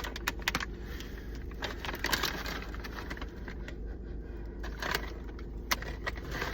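Crinkling of a plastic snack bag and crunching of spicy curry corn snacks, in scattered crackly bursts over a steady low hum.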